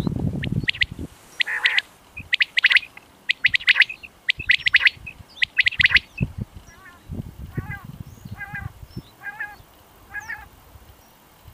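Common quail calling: six sharp three-note 'wet-my-lips' phrases about once a second, then, after about six seconds, softer, nasal, meow-like notes repeated five or six times. Bouts of low rumble come at the start and again midway.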